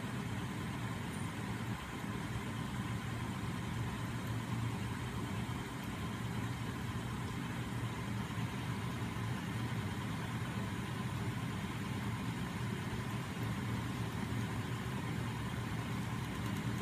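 Homemade neodymium magnet machine running steadily: a small DC electric starter motor turns the spinning magnet wheels and crankshafts, with further DC motors turned as generators.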